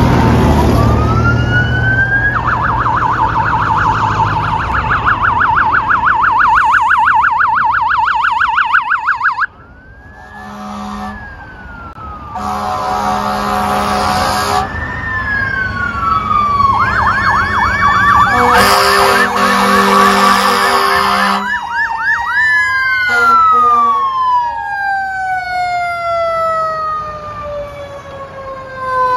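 Emergency vehicle sirens passing close: an electronic siren wailing, then yelping very fast, cutting off abruptly. Air horn blasts sound in between, and near the end a siren's pitch falls in a long, slow glide as it winds down and moves away.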